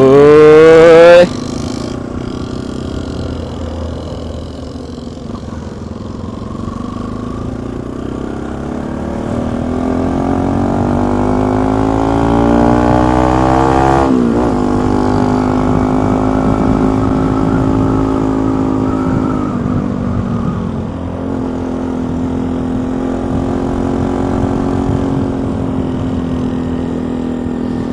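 Motorcycle engine pulling hard, its pitch climbing steadily for several seconds and dropping sharply about halfway through at a gear change, then running at a steady speed. A low rumble of wind on the microphone runs underneath.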